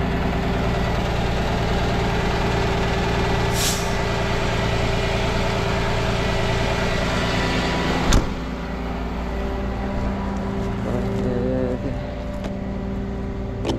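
Rollback tow truck's diesel engine idling steadily, with a short burst of air hiss about four seconds in, like an air brake being set. A single loud slam of the cab door about eight seconds in, after which the truck is heard from outside.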